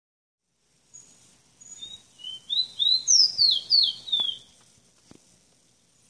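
Caged rowti (chestnut-bellied seed finch) singing one phrase of quick, slurred whistled notes that swoop up and down, growing louder toward the middle and ending about four and a half seconds in.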